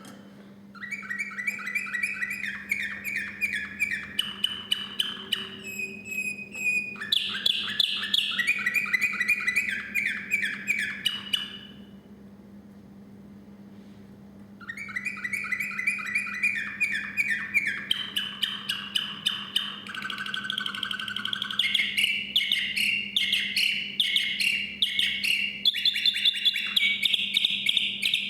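Song canary singing two long songs of rapid trills. Each trill is a fast run of repeated notes that steps up and down in pitch from one tour to the next, and there is a pause of about two seconds between the songs.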